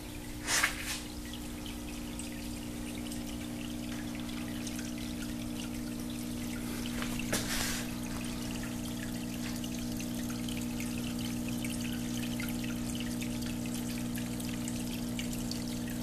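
Water trickling and pouring steadily down the glass panel of a wall fountain, over a steady low hum. Two short bursts of noise stand out, one just after the start and one about halfway through.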